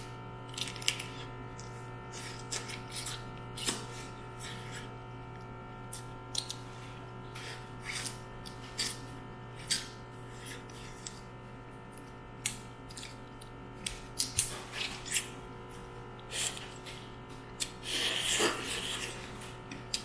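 Mud crab shell being cracked and picked apart by hand: sharp cracks and clicks at irregular intervals, with a longer crunching stretch about eighteen seconds in.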